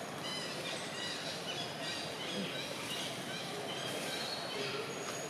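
Small birds chirping in many short calls over a steady outdoor background noise.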